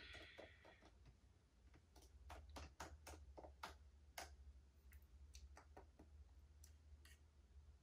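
Faint, irregular clicking of keys being typed on a laptop keyboard.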